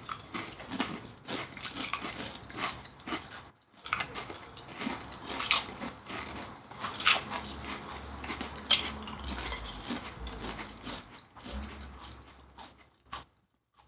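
Pringles sour cream and onion potato chips being bitten and chewed by two people: a run of irregular crisp crunches.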